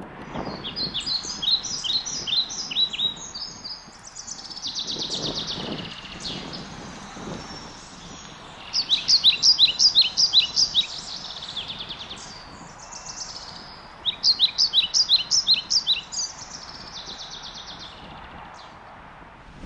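Small songbirds singing in woodland: quick series of high chirping notes in three loud bursts, each a couple of seconds long, with softer trills between and a faint steady outdoor hiss underneath.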